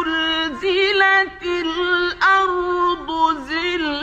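A male Quran reciter chanting in the melodic mujawwad style, holding long high notes with wavering ornamented turns and sliding down at the ends of phrases; a new phrase begins about two seconds in.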